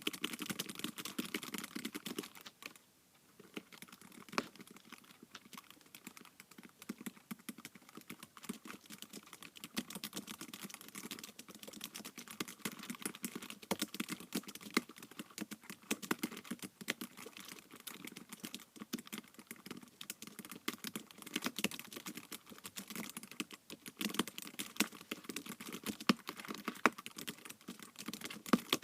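Fast continuous typing on an iPad keyboard, a dense patter of key clicks with a brief pause about three seconds in.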